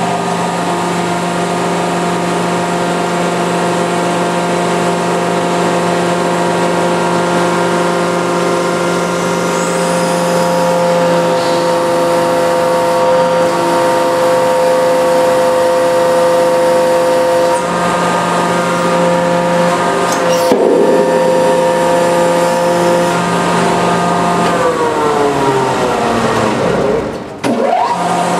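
Hydraulic press pump running with a steady whine while the press crushes a rubber band ball, with a sharp crack about two-thirds of the way through. Near the end the whine slides down in pitch and briefly cuts out, then starts again.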